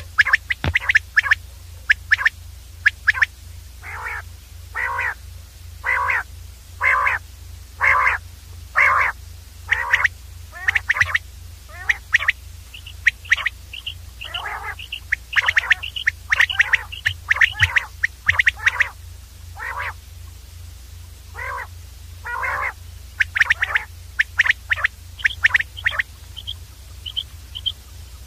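Common quail calls repeated about once a second, with runs of shorter, higher notes in between, over a faint steady low hum.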